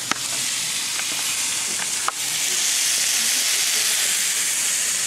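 Sliced red and green bell peppers sizzling as they fry in olive oil in a pan, a steady hiss. Two sharp clicks, one just after the start and one about two seconds in, after which the sizzle is louder.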